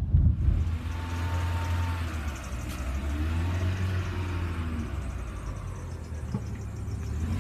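Steady low rumble of motor vehicles and road noise, with a faint hiss of traffic over it.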